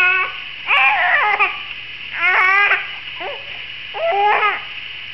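Young infant fussing: a string of five or so short, whiny cries, each under a second long.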